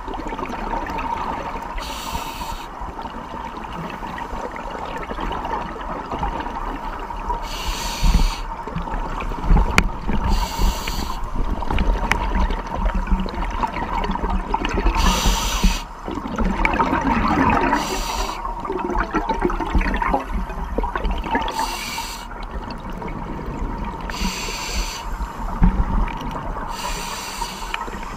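Scuba diver breathing through a regulator underwater: a short hiss of each drawn breath every few seconds, with bubbling and gurgling of exhaled air between, and a faint steady tone throughout.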